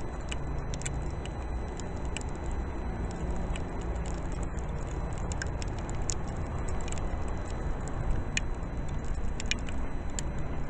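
Steady outdoor city street noise in a snowstorm, with a low hum and scattered small clicks and ticks.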